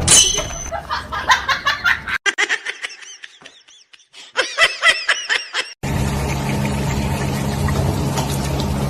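A person laughing in quick bursts. After a sudden cut, a run of quick high-pitched squeaks follows, and then a steady hum with a noisy background.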